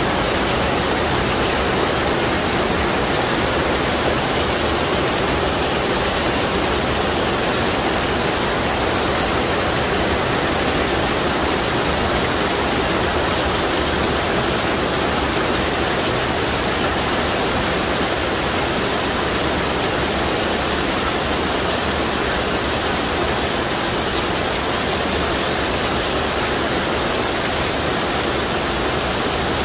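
Heavy downpour of rain falling steadily and evenly onto paving, with water pouring off the edge of a roof canopy.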